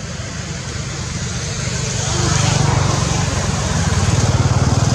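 A motor engine running close by, a low, pulsing drone that grows louder about two seconds in and then holds steady.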